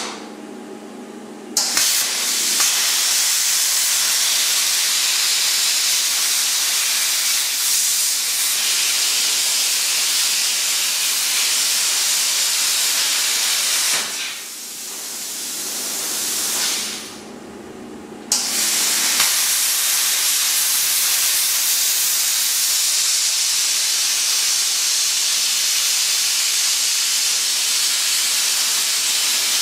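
Plasma cutter cutting through the steel spring mount of an axle casing: a loud, steady hiss of the arc and its air, in two long cuts. The first cut starts after a second or two of low hum and trails off about halfway through; the second starts a few seconds later.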